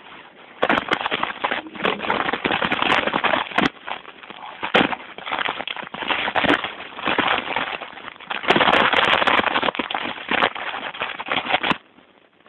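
Water running from a bathtub mixer tap and hand shower into the tub: an uneven rushing noise with many small clicks, cut off sharply near the end as the tap is turned off.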